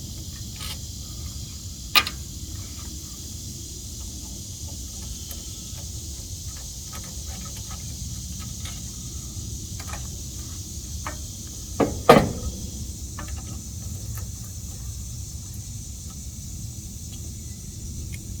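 Scattered small clicks and knocks of hand tools working the valve cover off a small 79cc engine. There is a sharp click about two seconds in and a louder knock about twelve seconds in, over a steady high hiss.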